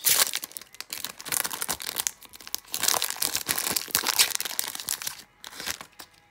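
Foil trading-card pack wrapper being torn open and crinkled by hand: a dense run of crackly crinkles and tearing for about five seconds, growing sparser near the end.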